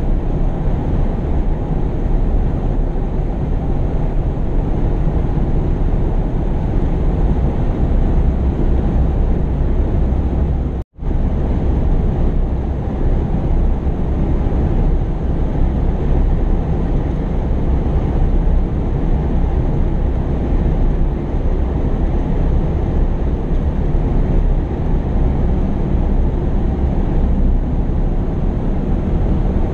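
Heavy construction machinery's diesel engines running steadily, a loud low rumble. The sound cuts out for an instant about eleven seconds in, then carries on unchanged.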